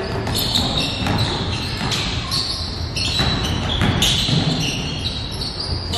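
Basketball being dribbled and bouncing on a gym's hardwood court during play, with sneakers squeaking on the floor, in a large echoing hall.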